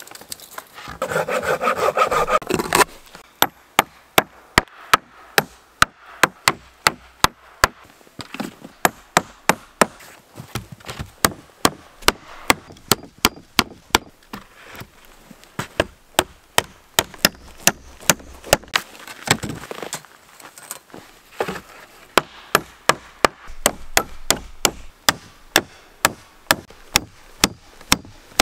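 Hammer driving nails into wooden pallet planks: runs of sharp blows, about two a second, with short pauses between runs. A brief rasping noise comes first.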